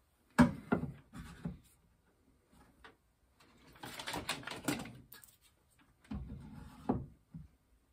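Bar clamps being hung on a wooden wall-mounted clamp holder: scattered clacks and knocks as the steel bars and plastic jaws hit the wood and each other, with a busier cluster about halfway through.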